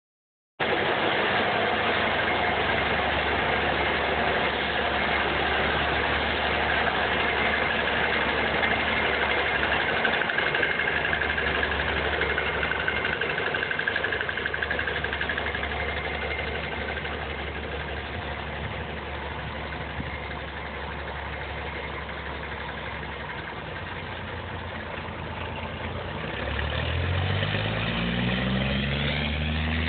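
Engine of a Peterbilt rat-rod truck running steadily. It grows a little quieter in the middle, then revs up with a rising pitch near the end as the truck accelerates away.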